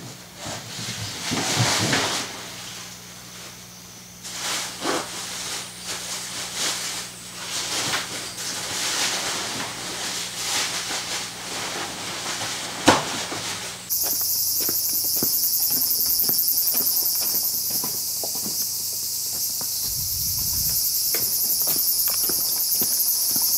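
Cloth and bag rustling as a backpack and gear are packed by hand, with a sharp click near 13 seconds in. Then an abrupt change to a loud, steady high-pitched chorus of insects, with regular footsteps on pavement and a brief low rumble partway through.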